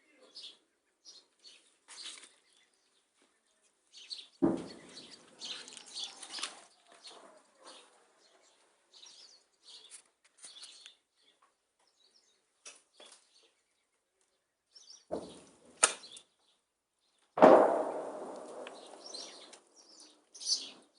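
Artillery shell explosions: a heavy boom about four seconds in and a louder one three-quarters of the way through, each rumbling away over a couple of seconds. Two sharper bangs come shortly before the second boom. Birds chirp faintly between the blasts.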